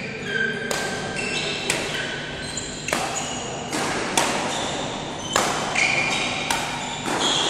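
Badminton rally: racquets striking the shuttlecock in quick succession, a sharp hit about every half second to second, each with a brief ringing after it, echoing in a large hall.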